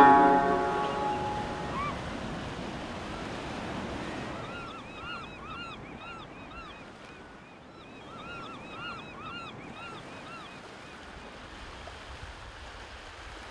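Waves washing on a shore: a steady surf hiss as banjo music fades out over the first second or two. From about four seconds in there is a run of quick, repeated high calls that rise and fall.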